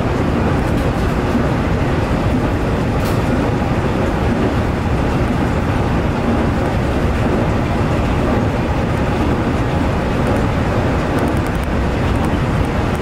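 Nankai 8300 series electric train running along the line, heard from inside the leading car: a steady rumble of wheels on rail and running gear, with no distinct motor whine.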